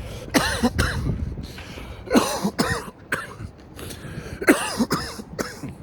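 A man coughing hard in repeated fits, about eight coughs in all, after taking a hit from a cannabis vape.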